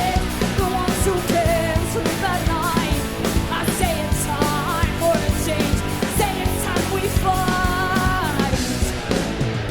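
Live hard rock band playing: distorted electric guitars, bass and drums, with a bending melodic lead line over them.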